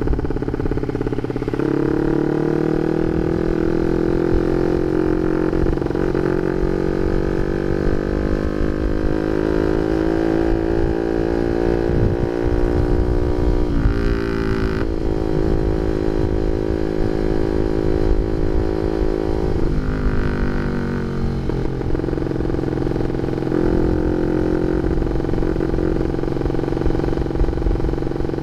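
Honda Sonic 150R's single-cylinder engine through an aftermarket CLD Monster exhaust, ridden at low speed and sounding very noisy. The revs climb slowly through a gear, with two drops like gear changes, about halfway through and a little later.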